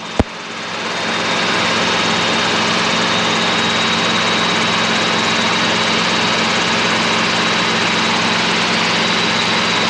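Helicopter cabin noise in flight, heard through the headset intercom: a steady engine and rotor drone with a thin high whine. It opens with a click and builds over the first second, then holds level.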